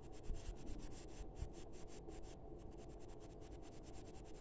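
Colored pencil scratching on drawing paper in quick, short repeated strokes, faint.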